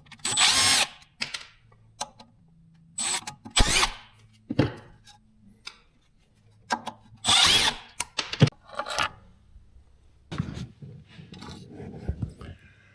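Power drill run in three short bursts of about a second each, with clicks and knocks of handling in between.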